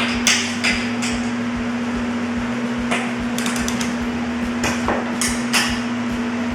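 Click-type torque wrench working the bolts of an aircraft wing strut: scattered sharp metallic clicks and taps, including a quick run of small ratchet-like clicks about halfway through. A steady hum runs underneath.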